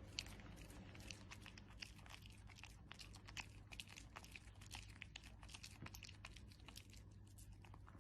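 Faint, quick crunching and chewing, many small crunches in a row: a dog chewing something crunchy.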